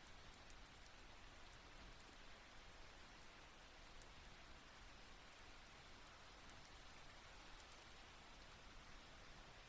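Light rain without thunder, faint: a steady soft hiss with scattered drop ticks.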